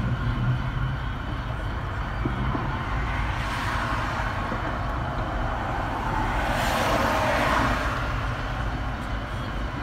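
Road traffic rumbling steadily, with two vehicles swishing past, one about three seconds in and a louder one about six and a half seconds in.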